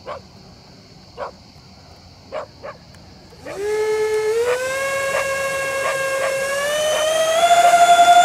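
The twin electric ducted fans of a Freewing Su-35 RC jet spool up suddenly about three and a half seconds in, a whine that rises in pitch in steps as the throttle is opened for the take-off roll. Before that, a dog barks a few times.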